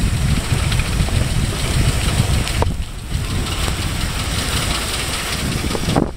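Wind buffeting the microphone of a camera held at a moving car's window, over the car's running engine and road noise: a loud, steady rumble that eases briefly about two and a half seconds in.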